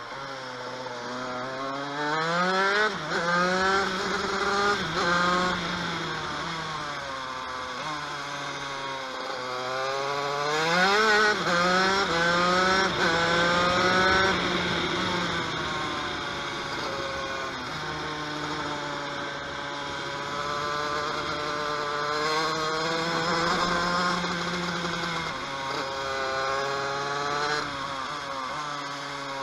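TM KV92 125cc two-stroke shifter kart engine at full race pace, its buzzing note climbing in pitch as it accelerates and dropping back again and again through gear changes and braking for corners.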